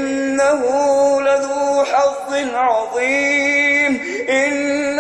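A man reciting the Quran in a slow, melodic chant, holding long drawn-out notes with small melodic turns between them and brief pauses for breath.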